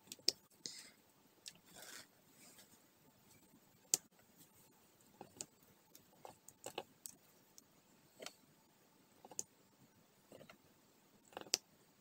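Diamond painting drill pen picking round resin drills from a plastic tray and pressing them onto the sticky canvas: scattered small clicks and taps at an uneven pace, with a brief rustle near the start.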